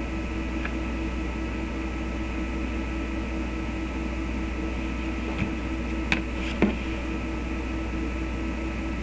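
Steady hum and hiss of room noise, with a few short clicks and knocks between about five and seven seconds in as a mobile phone is picked up and raised to the ear.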